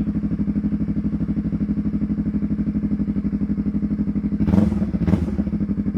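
Yamaha R3's parallel-twin engine idling through a Yoshimura full exhaust, with a steady, evenly pulsing exhaust note. Two short, louder bursts come near the end.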